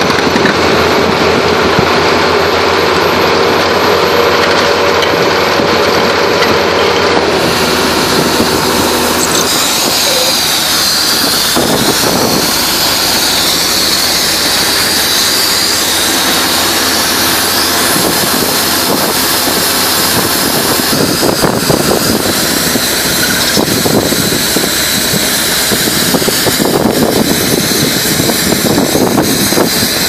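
Tracked down-the-hole drilling rig boring a post hole, its engine and air compressor running steadily under load. About nine seconds in, the steady engine note gives way to a rougher, noisier sound.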